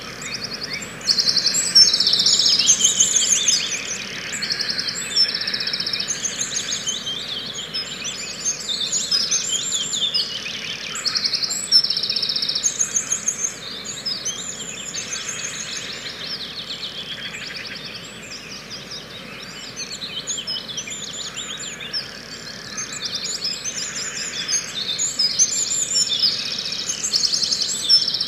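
Recorded dawn chorus of many small birds, played as a stage sound effect: overlapping quick, high-pitched chirps and trills in a continuous stream, fullest a couple of seconds in, thinning in the middle and building again toward the end.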